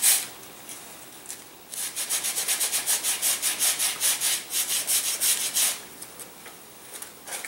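Balsa wood sanded by hand on a sandpaper block, bevelling the wing halves' root joint for dihedral. It comes as quick back-and-forth strokes, about five a second, for roughly four seconds starting about two seconds in, with a few more strokes near the end.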